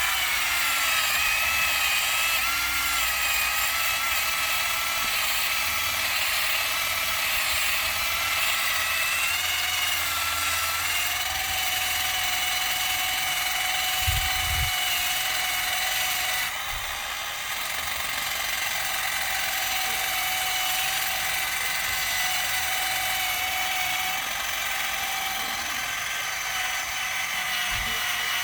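Electric drill spinning a wire wheel against a rusty chrome exhaust pipe: a steady high whine whose pitch wavers slightly as the load changes, cutting off suddenly near the end.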